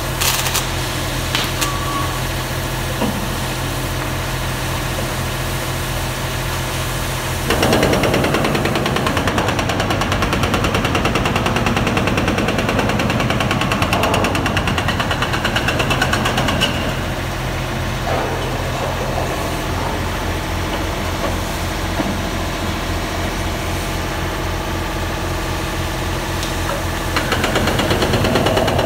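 A heavy construction machine's engine running steadily at a low drone. From about 7 to 17 seconds, and again near the end, a louder fast mechanical rattle joins it.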